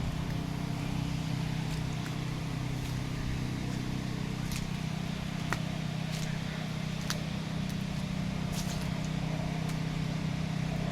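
A running motor with a steady low hum, with a few light clicks scattered over it.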